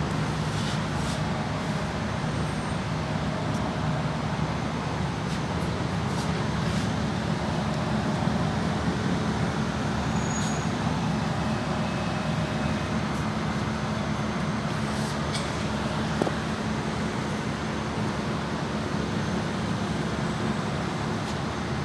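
Exhaust of an Audi A6 with an upgraded full exhaust system, running steadily as a low, even drone with no revving.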